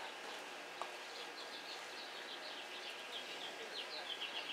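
Small birds chirping in quick runs of short, high chirps that get busier toward the end, over steady room noise, with one sharp tick just under a second in.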